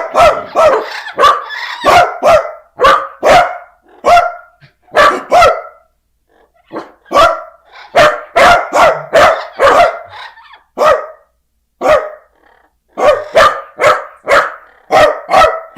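Loud barking in runs of short, separate barks, about two a second, broken by two brief pauses.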